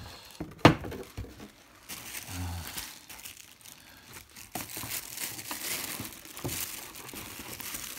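A sharp knock just under a second in as the cardboard carton is handled. Then, from about halfway through, the crinkling and rustling of the thin plastic bag wrapped around the radio as hands pull at it.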